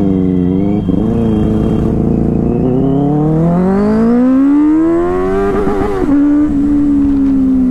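Motorcycle engine accelerating hard, its pitch climbing steadily for about five seconds, then dropping sharply at an upshift about six seconds in and running on with the revs easing slightly.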